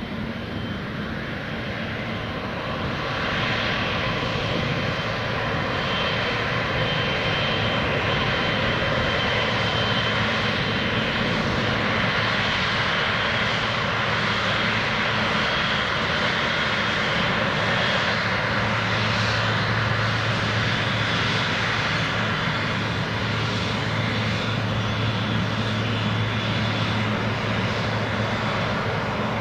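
Boeing 777's GE90 turbofan engines running at taxi power: a steady jet rush and whine that builds over the first few seconds, with a low hum joining about two-thirds of the way through.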